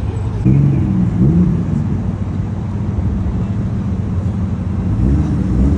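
Car engines idling, their low exhaust note rising and falling in pitch as they are revved briefly about half a second in and again near the end.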